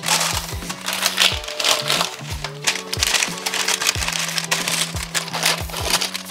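Background music with a steady beat, over the crinkling of greaseproof paper being pressed and creased into a glass baking tray.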